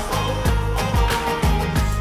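Background music with a steady beat of deep thumps about twice a second.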